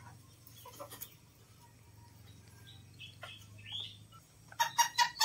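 Serama bantam chickens calling quietly: a few faint high chirps, then a quick run of louder short clucks near the end.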